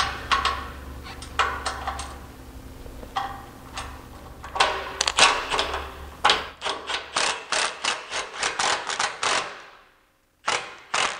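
Hand ratchet clicking in quick even strokes, about four a second, as the bolt holding a bump stop to its frame bracket is run down, after some clinks and knocks of the parts being set in place.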